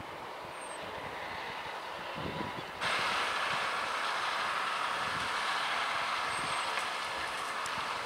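John Deere 6250R tractor's six-cylinder diesel engine running steadily under load as it pulls a seven-furrow plough through the soil. About three seconds in the sound suddenly gets louder and brighter.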